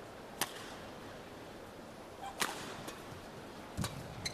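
Badminton racket strikes on a shuttlecock in a rally: single sharp cracks about two seconds apart, then a thud and a short squeak near the end. Steady hall background underneath.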